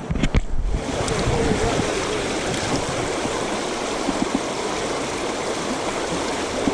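River water rushing steadily over a shallow riffle, starting suddenly under a second in after a few knocks.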